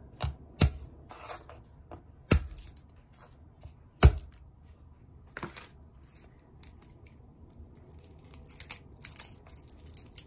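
Garlic cloves crushed under the flat of a chef's knife on a wooden cutting board: several sharp knocks in the first four seconds, the loudest about four seconds in. Then the soft crackle and rustle of papery garlic skins being peeled off by hand.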